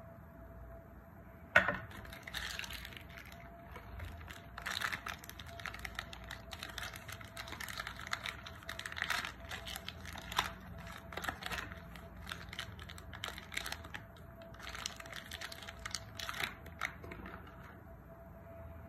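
A single sharp snap of a chocolate bar being broken about a second and a half in. Then plastic chocolate-bar wrapper crinkling and tearing in irregular bursts as it is opened, with a short lull in the middle.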